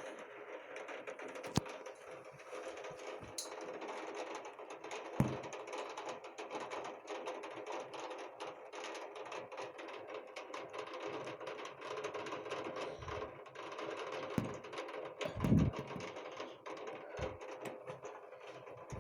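Heavy rain falling: a dense, steady patter of raindrops striking a hard surface, with a few louder single knocks.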